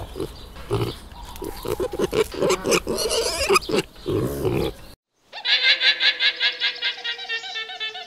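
Pigs grunting as they root in the dirt, short grunts one after another. After a brief silence about five seconds in, an alpaca gives a high, rapidly pulsing call.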